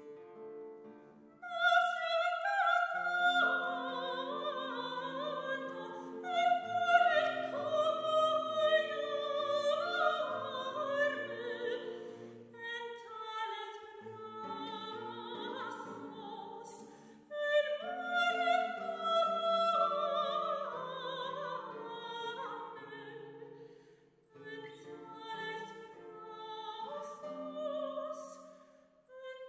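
Operatic soprano singing with classical guitar accompaniment. The guitar plays softly alone at first, then the voice comes in about a second and a half in and sings long phrases, with short breaks between them.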